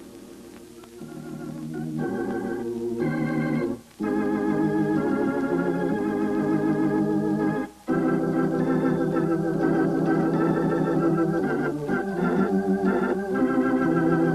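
Electronic organ playing sustained chords with a wavering vibrato. It swells in over the first couple of seconds and breaks off briefly twice, about four and eight seconds in.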